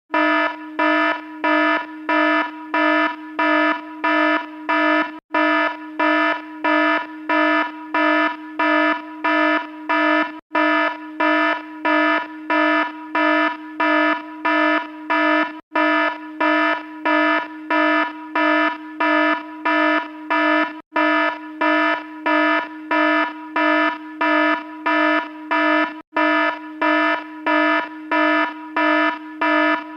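Electronic alarm beeping with a buzzy, rasping tone, about two beeps a second in a steady repeating pattern, with a brief break about every five seconds.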